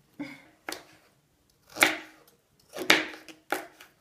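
Kitchen knife chopping a carrot into cubes on a plastic cutting board: about five sharp knocks of the blade striking through onto the board, at uneven intervals.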